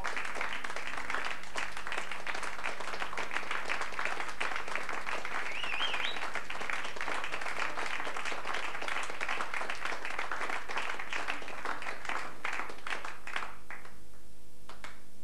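Studio audience applauding, dense and even, then thinning out near the end to a few scattered claps.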